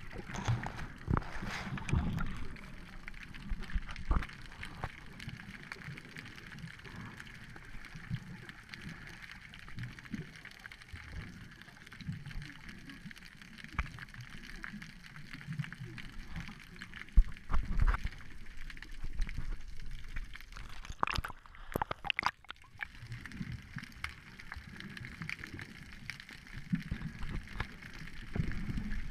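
Muffled underwater sound picked up through a GoPro's waterproof housing: water sloshing and gurgling past the camera, with irregular low thumps and knocks. The loudest knock comes just past the middle.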